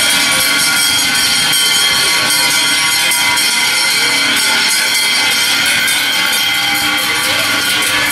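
Large cowbells on a herd of walking cows ringing together, a steady dense metallic jangle of many overlapping bell tones, with sharper clanks near the end.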